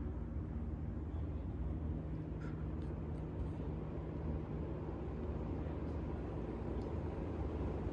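Hampton Bay Huntington II ceiling fan, fitted with an upgraded 188 by 15 motor, running steadily on high speed: an even low motor hum with a rush of moving air. A few faint ticks come about two to three seconds in.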